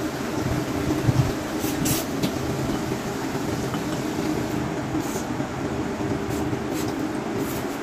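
A steady low mechanical rumble in the background, with a few short slurps of noodles being sucked up.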